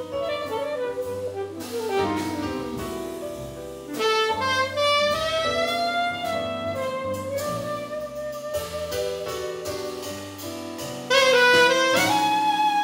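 Live jazz from a small combo: a saxophone plays a flowing melody with gliding notes over double bass and drum kit with cymbals. The playing gets louder near the end.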